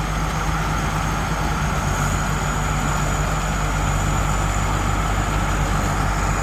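Rice combine harvester's diesel engine running steadily, with its threshing gear engaged through the PTO, and a steady high whine over it.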